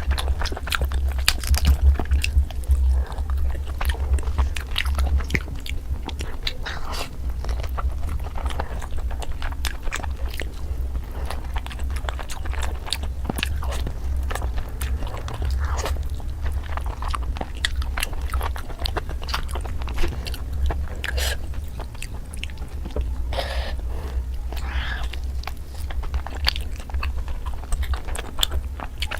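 Close-miked chewing and biting of tandoori chicken: many irregular sharp mouth clicks and bites, over a steady low hum.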